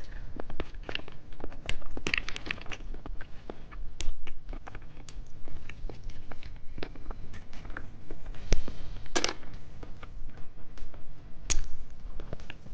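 Plastic candy wrapper crinkling and tearing as it is handled and opened, with irregular sharp crackles and clicks.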